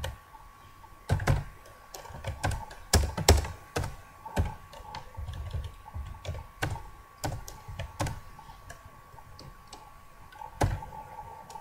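Typing on a computer keyboard: irregular keystrokes at an uneven pace, with a few louder key strikes among them, over a faint steady tone.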